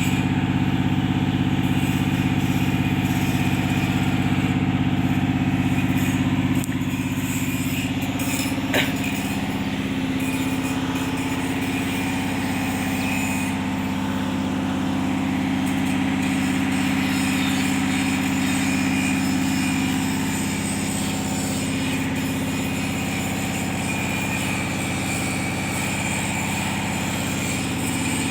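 An engine running steadily at a constant speed, with a low, even hum. The level drops slightly about a third of the way in, and there is a brief click near nine seconds.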